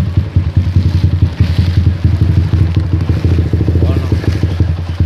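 Motorcycle engine running steadily at low riding speed, a fast even beat of exhaust pulses, heard from on the bike.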